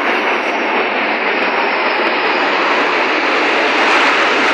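Formation of military jets flying overhead: a steady rushing jet roar that grows gradually louder toward the end.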